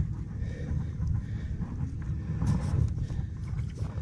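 Wind buffeting a head-mounted action camera's microphone, a steady low rumble, with a brief louder noise about two and a half seconds in.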